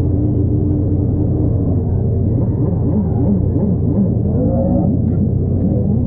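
Turbocharged 2JZ inline-six engine in a drift car running hard on track, its pitch rising and falling over and over as the revs climb and drop.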